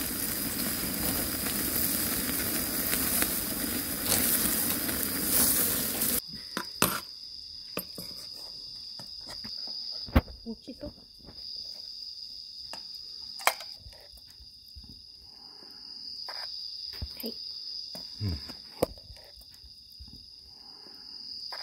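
Wood fire flaring under a wire grill, with meat sizzling over the flames, a loud steady hiss and crackle. About six seconds in it cuts off abruptly to crickets chirping, a steady high trill, with a few sharp metal clinks of a ladle against an aluminium mess tin of soup.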